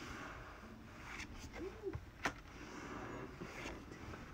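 Quiet handling of a stack of Pokémon trading cards: soft rustles and a few light clicks as cards are slid from the back of the stack to the front, with one sharper click a little past two seconds in.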